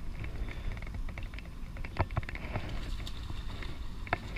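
Low rumble of wind on the microphone, with scattered sharp clicks and taps, the loudest about two seconds in and near the end.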